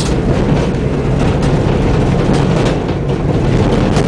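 Old Ford Escort van driven fast over a rough, rutted track, heard from inside the cab: a loud, continuous rumble of engine and tyres with frequent knocks and rattles as the body and suspension are jolted.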